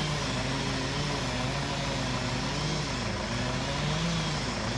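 Chainsaw running at high revs as it cuts into the trunk of a ponderosa pine, its pitch wavering and dipping briefly as the chain takes load.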